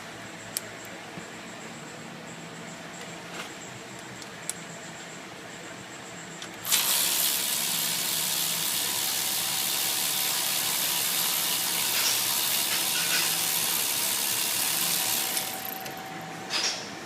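A faint steady hum with a few light clicks, then a loud, steady hiss of rushing air or spray that starts suddenly about seven seconds in and runs for about nine seconds before dying away.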